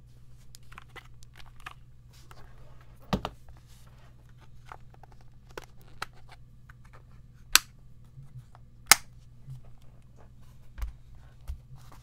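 Handling noise from a Tecware Veil 87 mechanical keyboard being turned over and set down on a desk mat: scattered light clicks and taps, a low thump about three seconds in, two sharp clicks in the second half and another low thump near the end.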